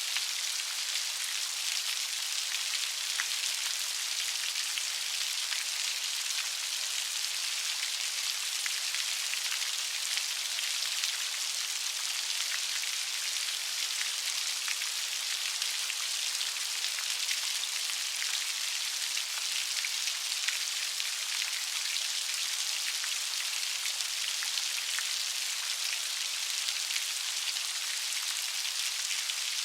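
Steady light rain, a dense even patter of fine drops with little low end.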